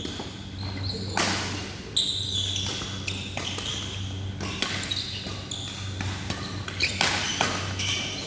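Badminton doubles rally: several sharp racket strikes on the shuttlecock and short high squeaks of shoes on the court floor, over a steady low hum in a large echoing hall.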